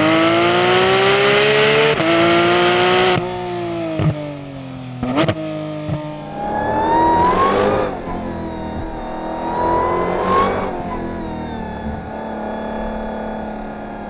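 Porsche 911 GT3 RS's naturally aspirated flat-six revving high under acceleration, its pitch climbing for about three seconds before it backs off. After a couple of sharp clicks, the supercharged V8 of a Dodge Challenger SRT Hellcat Redeye accelerates hard, climbing in pitch and dropping on two upshifts, then climbs again near the end.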